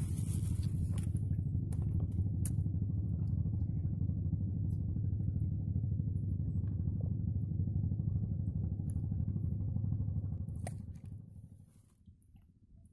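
A boat engine running with a steady low rumble, fading away about eleven seconds in. A few light knocks can be heard over it.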